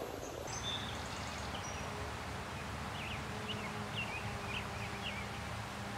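Steady outdoor ambience beside a small stream, an even hiss, with a small bird chirping a quick run of short notes about halfway through.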